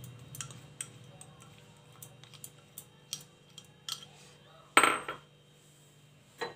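A spoon tapping and scraping against a small glass bowl as chopped coriander is emptied out: a run of light clicks and clinks, with one louder clatter about five seconds in and a sharp knock near the end.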